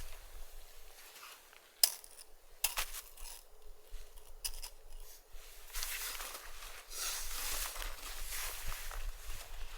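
Gusty wind rising to a steady rushing hiss through the second half, after a few sharp, clinking knocks of something small and hard about two, three and four and a half seconds in.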